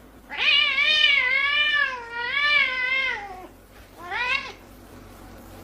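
A cat giving a long, wavering, drawn-out meow that drops in pitch as it ends, then a shorter meow about four seconds in.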